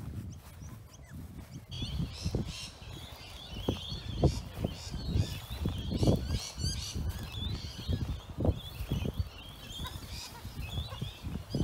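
Flock of long-billed corellas chattering, dense overlapping short harsh calls, starting about two seconds in, over a low rumble with scattered low thuds.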